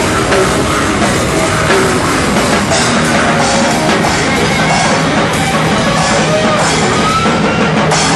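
Loud rock band playing live, with guitar and drum kit.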